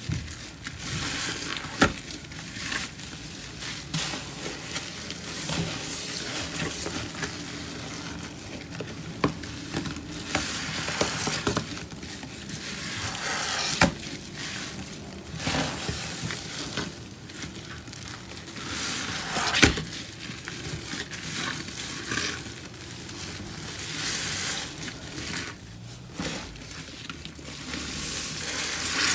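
Thick paste of pine cleaner, Comet cleanser and grout squelching and crackling as gloved hands squeeze and wring scrub sponges loaded with it, with three sharp clicks along the way.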